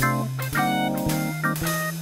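Instrumental background music with a bass line stepping to a new note about every half second and a steady drum beat.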